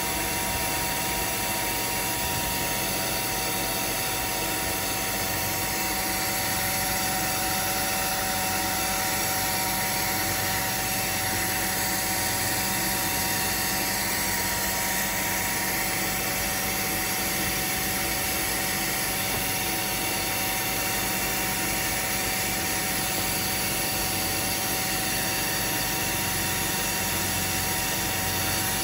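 Carpet cleaning machine running steadily, an even hum with several constant tones and no change in speed.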